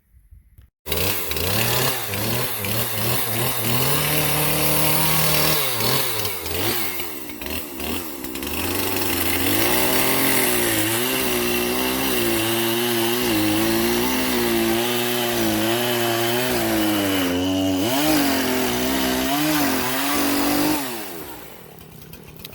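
Gas chainsaw running and cutting down the top of a wooden fence post, its engine pitch rising and falling as it revs and bites into the wood. It starts suddenly about a second in and stops shortly before the end.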